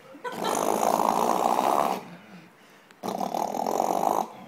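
A young man imitating a truck engine with his voice: two long, rough, rattling throat sounds, each about a second and a half, with a short pause between.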